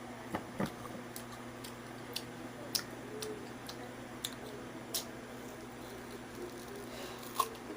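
Soft wet mouth sounds of someone eating ripe mango: scattered smacks and small clicks.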